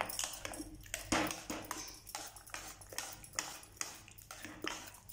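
A pav bhaji masher working cooked vegetables into a thick mash in a kadhai: repeated wet pressing strokes, about two to three a second, with the masher knocking against the pan.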